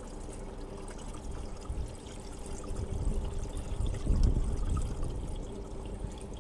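Windshield washer fluid poured from a plastic jug into a car's washer reservoir filler neck, a thin trickling pour as the jug runs nearly empty. A few low rumbles come about halfway through, the loudest just after the middle.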